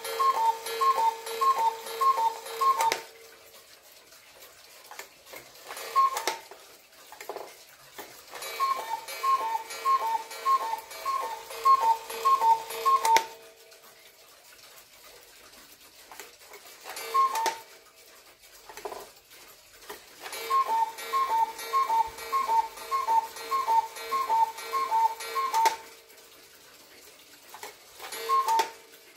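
Cuckoo clock's cuckoo calling, its two bellows whistles sounding high then low about twice a second. The calls come in three runs of several, with single calls between, as the minute hand is turned through the hours. The music box has been taken out, so no tune plays, only the cuckoo.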